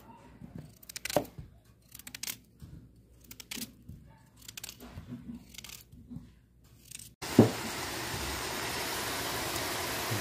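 Sparse light clicks and handling noises as chunks of peeled potato are moved about in a plastic bowl. About seven seconds in, the sound changes abruptly to a steady hiss of a pot of hare meat and onions cooking over heat, with one sharp knock as it begins.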